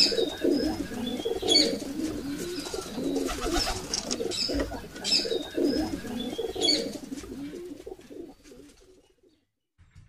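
Pigeons cooing in a repeating rhythm, with a few small birds chirping higher up; it fades out near the end and goes quiet.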